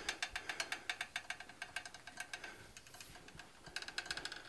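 A quick run of faint sharp clicks and ticks as a hot iron bar is turned in a vise with a twisting wrench to untwist it. The clicks come about eight a second at first and thin out after a couple of seconds.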